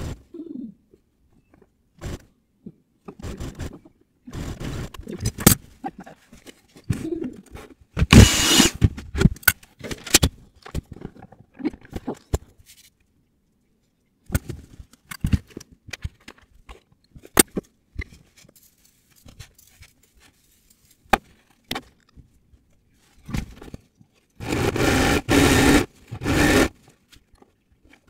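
Sped-up sounds of hand work on a coat: many short bursts of scraping and rubbing with gaps between them. Near the end come three longer runs of steady machine-like noise.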